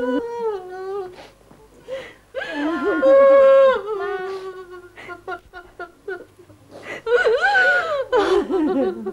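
Wailing and sobbing in grief: long drawn-out cries, about a second each, broken by short gasping sobs.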